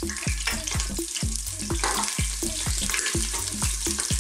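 Minced garlic sizzling in hot cooking oil in a stainless steel pressure cooker, stirred with a wooden spatula. Background music with a steady beat plays under it.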